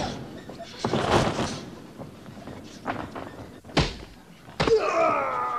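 Thuds of blows landing in a film fight scene, about four separate hits with the sharpest just before the middle-to-late part. Near the end a fighter's drawn-out cry with a falling pitch.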